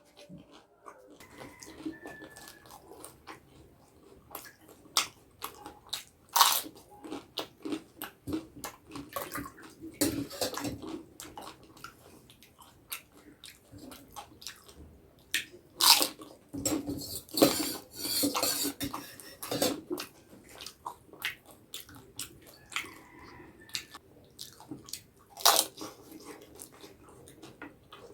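Close-miked eating: sharp crunching bites and chewing of crisp food, in irregular bursts, with a wetter, denser stretch about two-thirds of the way through.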